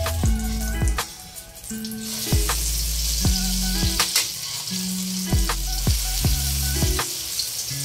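Eggplant omelettes frying in oil in a wok: a steady sizzle that gets much louder about two seconds in, when one omelette is turned over onto its uncooked side. Background music with a regular beat plays underneath.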